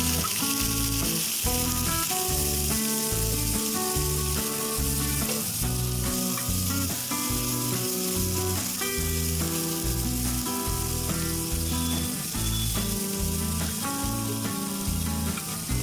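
Hot oil sizzling steadily as food fries in a pan, with background music playing a rhythmic bass line over it.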